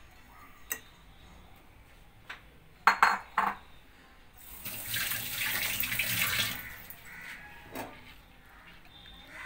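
A few sharp clanks against a metal wok about three seconds in, then about two seconds of rushing, splashing water.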